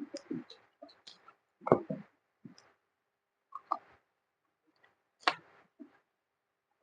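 Eating mouth sounds: irregular wet chewing clicks and lip smacks from gnawing food, with a louder smack just before two seconds in and another a little past five seconds.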